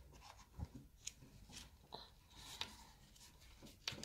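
Quiet handling of plastic Play-Doh moulds and dough on a wooden table: scattered light clicks and rubs, with a sharper click near the end.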